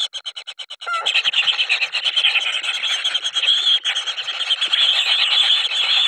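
Kingfisher nestlings giving shrill begging calls: a fast pulsing trill for about the first second, then a dense continuous chorus of overlapping high cries. These are hungry chicks begging for food.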